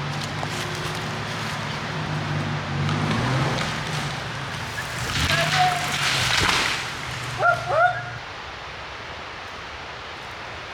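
A truck engine running steadily as it pulls the tree over by cable, with a rush of crashing branches and leaves in the middle as the tree falls; a few short yelps like a dog's bark near the middle, and the engine stops about two-thirds of the way in.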